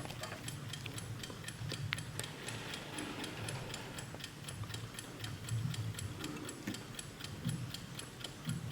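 A 1972 Bayard animated mechanical alarm clock ticking evenly and quickly, about four ticks a second.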